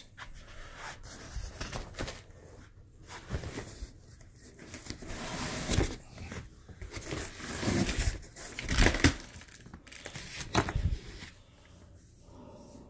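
Cardboard guitar box being handled and opened: irregular scraping, rustling and tearing of cardboard, with a few sharp knocks.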